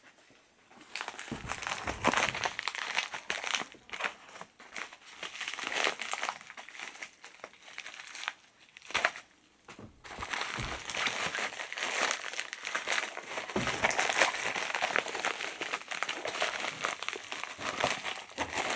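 Packaging crinkling and rustling as it is handled and opened. It comes in irregular bursts, with short pauses near the start and about halfway through.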